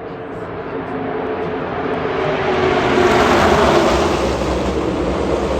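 Engine noise of a passing vehicle, swelling to a loud peak a little past the middle and then easing off.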